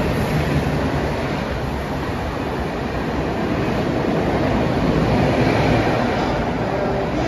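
Mumbai suburban electric local train (EMU) on the platform track: a steady rumble of wheels and traction motors with some clatter of wheels on rails, growing a little louder about five seconds in.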